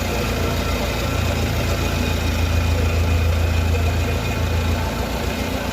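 Steady low machine hum with an even hiss over it, from industrial equipment running continuously.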